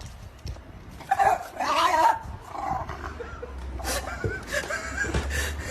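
A dog whining, with drawn-out cries about a second in and short rising cries near the end.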